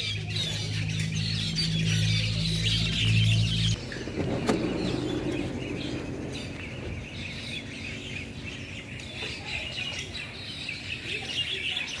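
A large flock of small birds chirping and calling continuously. A steady low hum is heard under the calls and cuts off suddenly about four seconds in.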